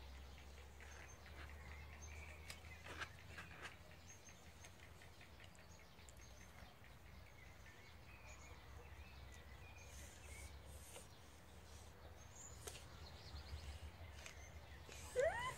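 Quiet outdoor background with a steady low hum and faint bird chirps, with soft rustles and crunches of hands pressing down potting compost. Near the end, one short rising call is the loudest sound.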